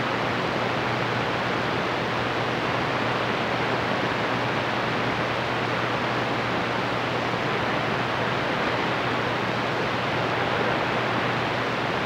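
CB radio receiver hissing with steady static on an open channel, with no station coming through.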